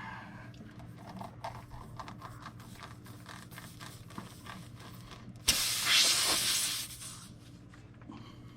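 Faint scraping and clicking, then about five and a half seconds in a sudden loud hiss of air rushing out of the tire's puncture hole for about a second and a half while the plug tool is worked in it: the tire deflating through the hole.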